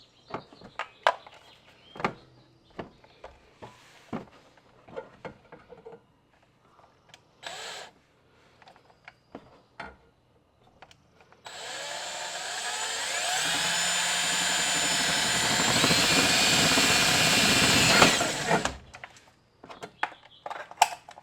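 Scattered clicks and knocks of tools and parts being handled, then, about eleven seconds in, a power drill runs for about seven seconds with a whine that climbs steadily in pitch, drilling mounting holes through an aluminium undertray, before it stops and the small clicks resume.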